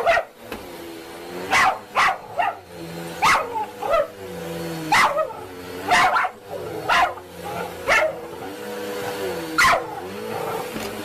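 A dog barking repeatedly, about a dozen sharp barks spaced roughly a second apart, over a steady droning hum.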